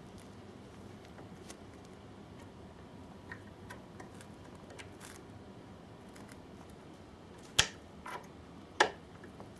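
Quiet room noise with a few small clicks, then three sharp clicks or knocks near the end, two of them loud.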